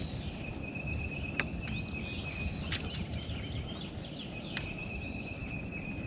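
Outdoor ambience: birds chirping over a steady high-pitched whine that drops out briefly now and then, with a low rumble of wind and a few sharp clicks.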